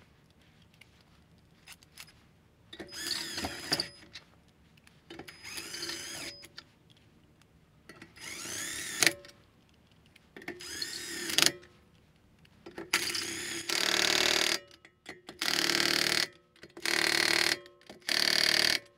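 Cordless drill with a socket spinning wheel bolts in, run in about nine short bursts of a second or so each, the first few with a rising whine and the last few louder.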